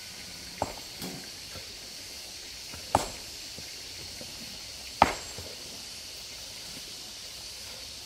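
A few sharp knocks at uneven intervals over a steady high hiss. The two loudest come about three and five seconds in.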